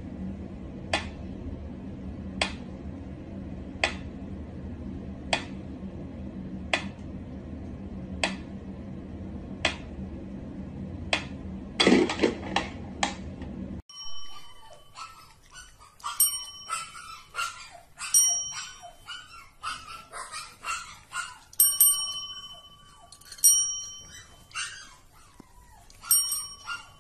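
Mechanical pendulum metronome ticking slowly, about one tick every second and a half, ending in a quick flurry of clicks. Then, after a cut, tabletop service bells dinging over and over at an uneven pace as kittens press their plungers.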